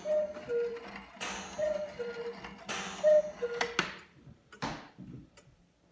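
Key-wound late-19th-century Black Forest cuckoo clock calling the hour: the cuckoo's two-note call, a higher note then a lower one, comes three times about a second and a half apart, each with a sharp clack from the mechanism. The calling stops about four seconds in, followed by a knock, and then the movement ticks faintly.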